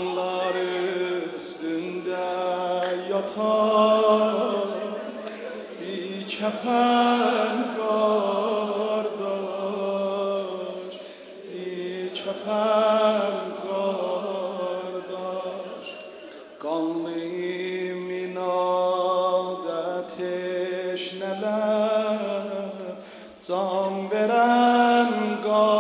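A man chanting a Shia mourning lament (noha) through a microphone, in long, wavering held notes sung in phrases of a few seconds each.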